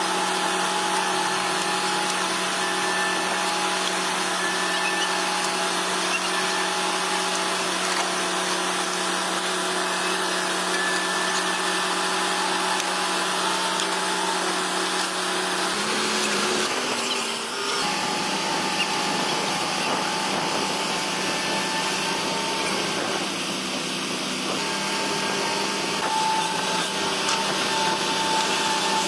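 Heavy bulldozer diesel engine running with a steady drone. Its pitch dips and changes briefly a little past the middle, as the engine speed shifts, then it settles into a steady drone again.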